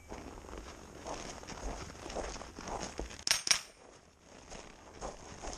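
Faint shuffling and handling noise between shooters, with a sharp metallic clink about three seconds in. No shots.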